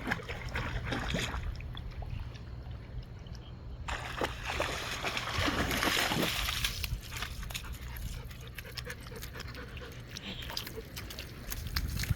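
Water splashing and sloshing as a dog swims and paddles about in the water, with the heaviest splashing about four to seven seconds in.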